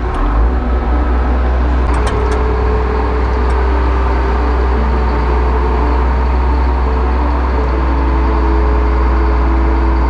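Log loader's engine starting up and running steadily with a deep rumble.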